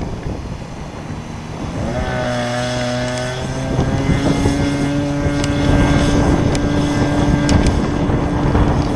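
Wind buffeting the microphone, then about two seconds in the engine of a GP Revolver .60 radio-controlled model aeroplane comes in as a steady note. It steps up in pitch about three and a half seconds in and holds there, with the wind rumble still underneath.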